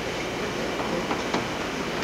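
Crowd of many people talking at once, an indistinct, steady murmur of voices.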